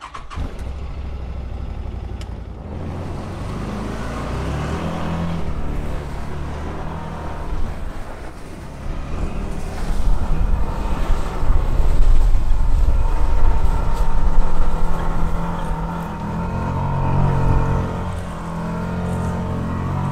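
Can-Am Defender HD10 side-by-side's V-twin engine under hard throttle, driving through deep snow. It gets louder about halfway through and eases off near the end.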